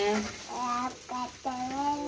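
A high-pitched voice in long, drawn-out, sing-song phrases, with one held, gliding note near the end.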